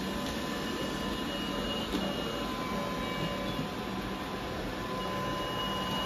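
Several robot vacuums running at once on carpet: a steady hum of their fans and brushes with a few thin steady tones. There is one small knock about two seconds in.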